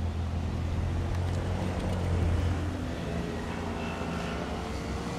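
Twin turboprop engines of a Canadair CL-215T/415 firefighting water bomber flying low overhead, a deep steady propeller drone. It is loudest about two seconds in, then eases off a little as the aircraft moves away.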